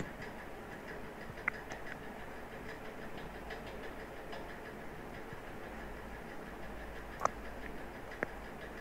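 Computer keyboard being typed on: soft scattered key taps with a few sharper clicks, over a steady low hum.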